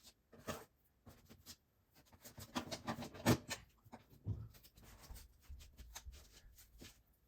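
Razor blade scraping and slicing through cured spray foam in a run of short, irregular strokes, the loudest coming about three seconds in.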